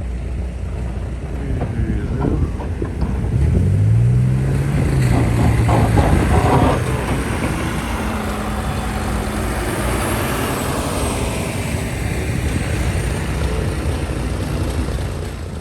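Street traffic: a large vehicle's engine passing, its note rising and then falling about three to seven seconds in, over a steady low rumble.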